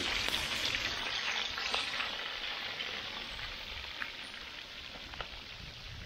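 Trout pieces frying in hot oil: a steady sizzle with a few sharp pops, slowly dying down.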